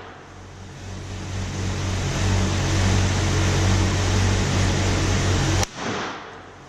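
A single gunshot about five and a half seconds in, sharp and brief, over a steady low rumble; the sound dips for a moment after the shot.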